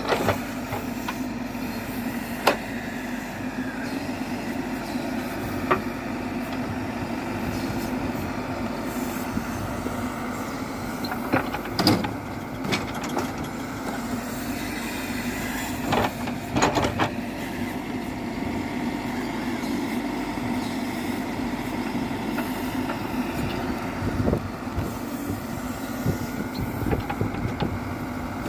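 Diesel engines of a backhoe loader and tractors running steadily, with sharp clanks and knocks now and then, the loudest about twelve seconds in and again around sixteen to seventeen seconds in.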